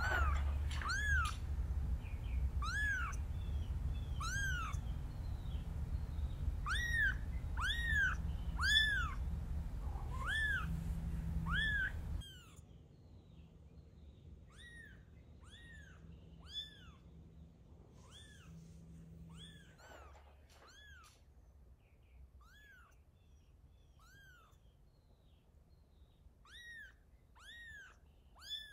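Very young tabby kitten mewing over and over, about one short call a second, each rising then falling in pitch: a kitten left on its own calling for its mother. About twelve seconds in, a low hum underneath stops and the mews go on more faintly.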